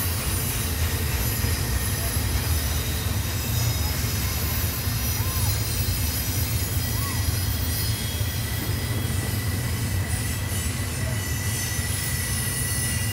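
Intermodal freight cars rolling by on a sharp curve: a steady low rumble with a thin, high wheel squeal.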